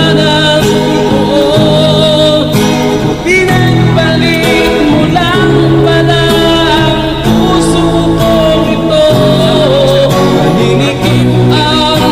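Music: a passage of a Tagalog ballad without recognised lyrics, a wavering melody line over steady accompaniment.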